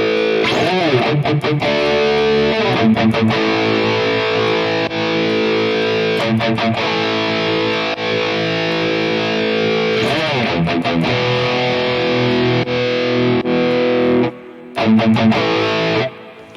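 Heavily distorted high-gain electric guitar played through a digital amp-modeling unit: big chords struck every few seconds and left ringing, with a short break near the end.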